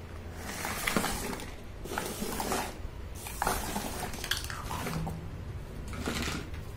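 Small plastic toy kitchen pieces clattering and rattling against each other as they are swept up by hand, in four separate bursts.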